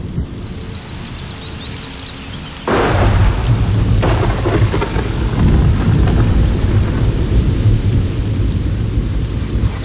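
Thunderstorm: rain falling with low rumbling thunder. A loud thunderclap breaks about two and a half seconds in, and heavy rain keeps falling after it.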